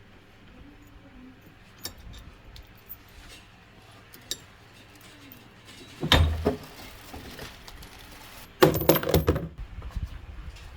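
Metal tools and parts clinking and clattering as they are handled: light scattered clicks, then two louder clatters about six and nine seconds in.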